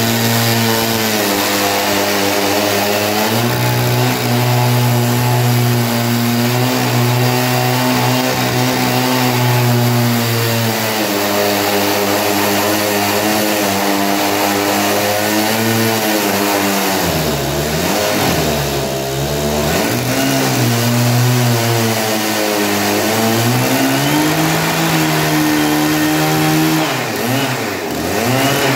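Two-stroke chainsaw running at high revs while cutting a pine log into boards, its engine pitch wavering with the load. The pitch drops sharply as the chain bogs in the wood, about two-thirds of the way through and again near the end.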